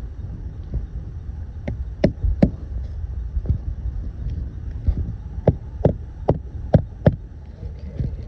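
Hammer striking roofing nails into asphalt shingles: about ten sharp blows, scattered at first and then in a quick run of roughly two or three a second, over wind rumble on the microphone.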